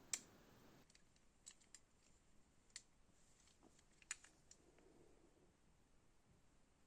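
Near silence with a few faint, sharp clicks and taps: one just at the start, then scattered softer ones over the next few seconds.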